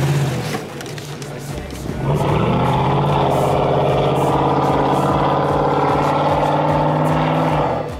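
A 2021 GMC Sierra AT4's V8, fitted with a Borla cat-back exhaust, revs up about two seconds in and is held at high revs as the truck's tyres spin and push through deep snow.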